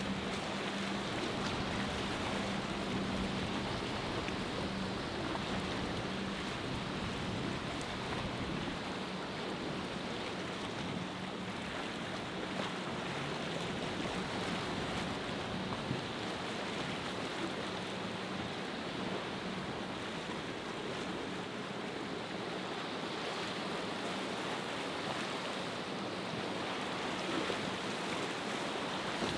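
Steady wash of choppy open sea. The low hum of a distant boat engine is heard for the first several seconds, then fades to faint.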